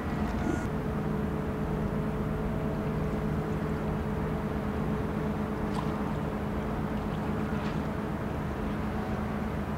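Inland cargo ship's engine running steadily while manoeuvring, a low hum with a faint higher tone held over it.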